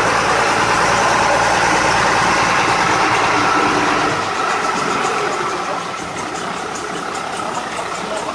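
Boat engine running steadily under way, with the hiss of water rushing past the hull; it eases off a little about halfway through.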